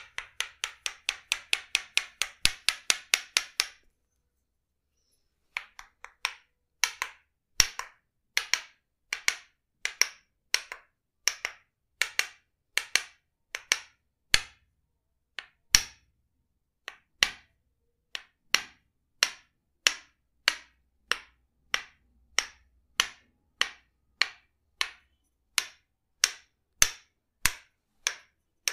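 Tok-Sen massage tapping, a wooden mallet knocking on a wooden stick pressed against the body. The sharp knocks come in a quick run of about four a second, stop briefly, then go on in a steady beat of about one and a half a second.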